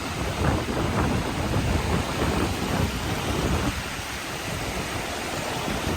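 Wind buffeting the microphone over the steady wash of ocean surf. The gusty rumble eases about two-thirds of the way through.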